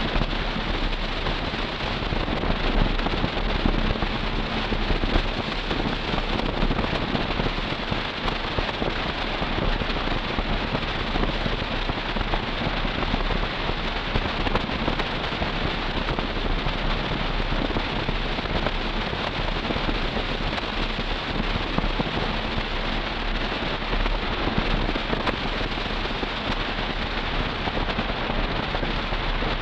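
A Toyota 4Runner's engine and Flowmaster Super 40 exhaust running steadily while driving, with road noise: an even, continuous rumble that stays at one level.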